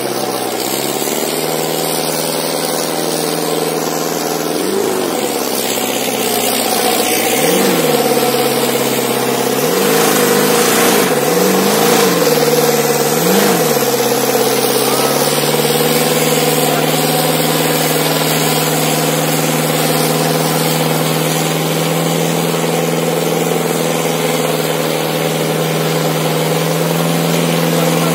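Sonalika 750 tractor's diesel engine working hard under load while dragging a single harrow through soil. In the middle it gives several short revs that rise and fall in pitch, then it holds a steady, higher note.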